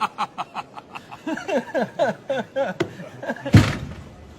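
A man laughing in quick, rapid bursts, then longer drawn-out laughter, followed by one loud thump about three and a half seconds in.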